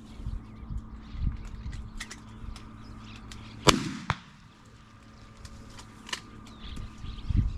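A shotgun shot a little past halfway, followed less than half a second later by a second, thinner sharp report, with scattered faint ticks and pops around them.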